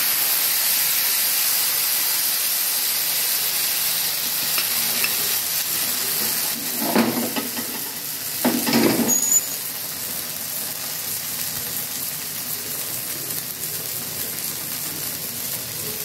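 Thin rice-flour chilla batter sizzling steadily on a hot, oiled tawa griddle. Two louder clattering bursts come about halfway through, as the griddle is handled on the stove.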